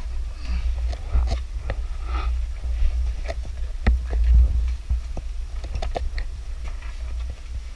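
Scattered small clicks and knocks, like equipment being handled, over a steady low rumble.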